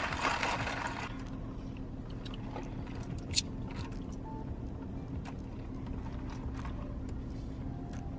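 Steady low hum inside a car cabin, with scattered faint clicks and one sharper click about three and a half seconds in, while someone sips an iced drink through a straw. A brief rustle fades out in the first second.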